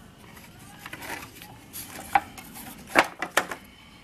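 Several light knocks and clicks from the wooden antenna jig and its pieces being handled, the loudest about three seconds in.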